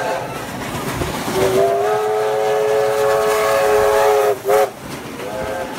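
Steam locomotive whistle blowing over the noise of the passing train: one long blast of about three seconds, then a short sharp toot and a brief weaker one near the end.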